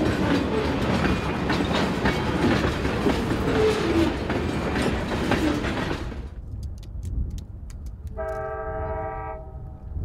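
Freight train tank cars rolling past close by, wheels clacking over the rail joints. About six seconds in, this gives way to the lower rumble of the approaching train, whose TP&W GP15-1 diesel locomotive sounds its horn in one blast of just over a second, several tones at once.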